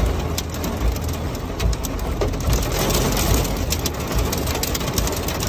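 Rain mixed with hail pelting window glass: dense, irregular ticks and taps over a steady low rumble.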